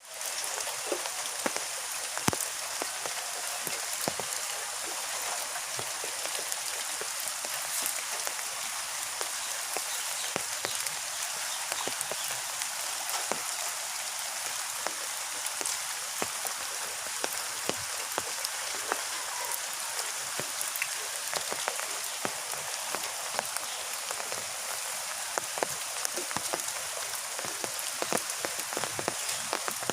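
Heavy rain falling steadily, an even hiss with many sharp close drop taps scattered through it.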